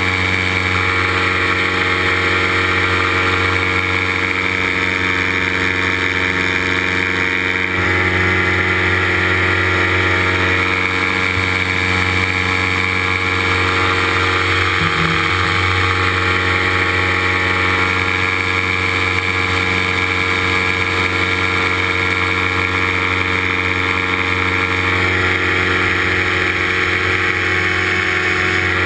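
Paramotor engine and propeller running steadily in powered flight, with a slight change in engine note about eight seconds in.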